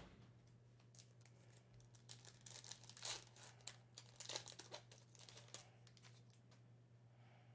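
Faint crinkling and tearing of a trading-card pack wrapper being opened by hand, a run of short rustles from about two seconds in to about five and a half seconds in, over a low steady hum.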